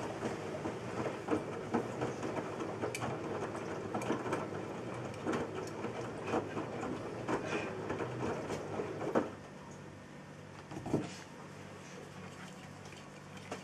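Front-loading washing machine drum tumbling a load of laundry, a rumble with irregular clatter and knocks. About nine seconds in the tumbling stops, leaving a low steady hum and one knock.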